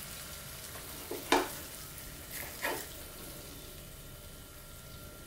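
Beef steak sizzling gently in oil and butter in a grill pan, a steady low frying hiss. A couple of short knocks, about a second and a half apart, as the steak is lifted from the pan with a fork.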